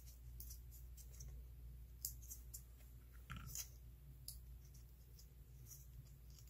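Faint scattered clicks and crinkles from fingers handling a small piece of glitter paper and double-sided tape, over a low steady hum.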